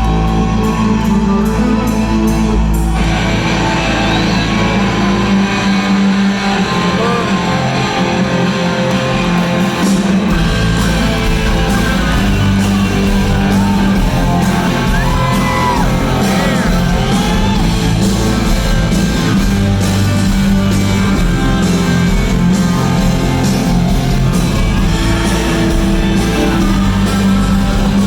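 Live rock band playing loudly in a large hall, led by distorted electric guitars, with notes that slide up and down in pitch; the sound thickens about three seconds in.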